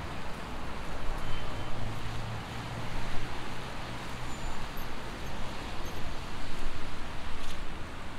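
City street traffic: cars passing on a wet road, heard as a steady rushing noise that swells and fades, with a low engine hum through the first three seconds.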